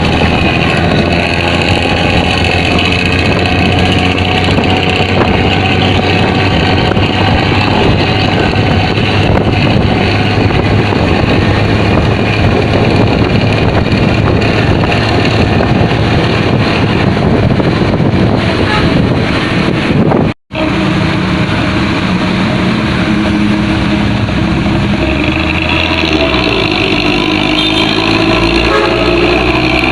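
Diesel intercity bus engines with modified 'ngorok' (snoring) exhausts, running loud with a rough, gurgling exhaust note. A sudden break about two-thirds through switches to another bus with a steadier, more pitched engine drone.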